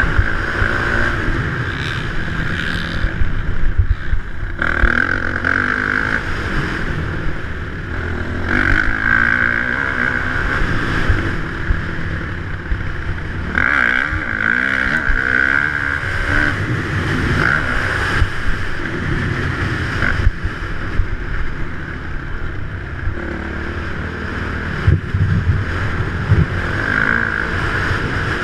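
Dirt bike engine revving up and easing off again and again as it is ridden round a motocross track, heard muffled from a helmet-mounted action camera. The rev rises several times, with a steady low rumble under it.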